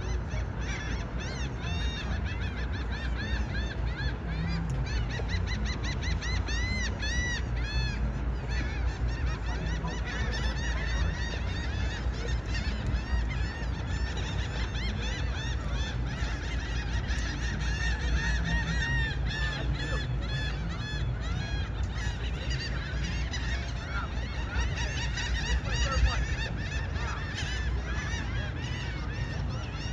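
A crowd of birds calling together in quick, repeated chirps and squawks, thickest in two spells, over a steady low rumble.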